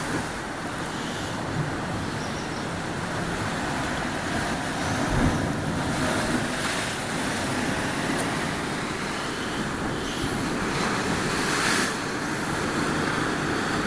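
Sea surf washing against a rocky shore: a steady rushing noise.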